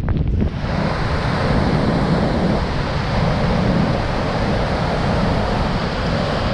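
Strong gale-force wind blowing, a loud steady rushing that buffets the microphone with a heavy low rumble; it starts suddenly about half a second in.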